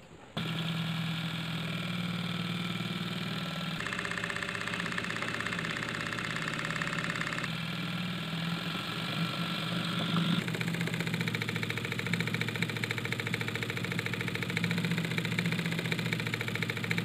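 Homemade DC motor, a hand-wound copper-coil armature spinning between two ring magnets, running at high speed with a steady low hum and a fast rattle. It starts abruptly about half a second in, and its tone shifts a few times.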